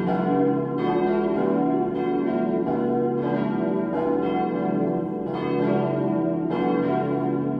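Full peal of four cast-steel church bells from 1922, tuned B, D, E and F-sharp, swinging together with their strikes overlapping in an uneven rhythm and each stroke ringing on. The peal is poorly voiced: the low B bell stands out clearly, and the D bell's clapper has long struck mostly on one side only.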